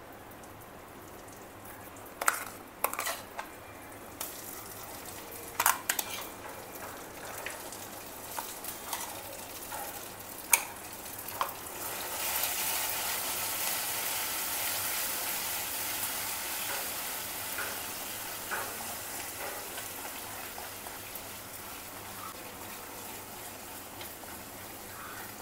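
Red chilli paste frying in hot oil in a steel kadhai. A few sharp clinks of a spoon against steel as the paste is scooped in, then a sizzle that rises about halfway through and slowly eases while a wooden spatula stirs it.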